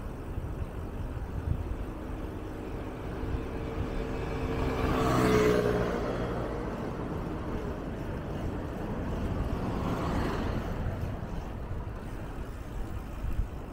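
A small motor scooter passes close by about five seconds in. Its engine note swells to the loudest point and drops slightly in pitch as it goes past. A fainter vehicle goes by about ten seconds in, over a low wind rumble on the microphone.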